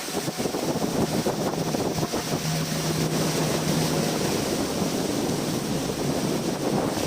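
Boat motor humming steadily under rushing water, with wind buffeting the microphone.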